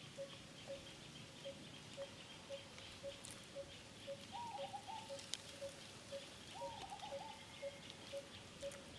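A bird repeating one short low note about twice a second, evenly, over a faint insect buzz, with two brief wavering calls about a third and two thirds of the way through.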